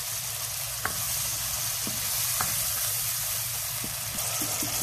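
Chicken livers, onion and garlic sizzling in hot oil in a wok while being stir-fried with a wooden spatula. A few light clicks from the spatula against the pan.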